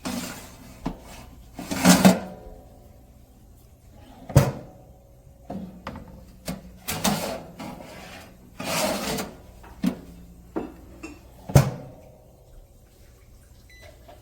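A series of irregular knocks, clatters and short rustling bursts, like things being handled and set down, with the sharpest knocks about four and a half and eleven and a half seconds in.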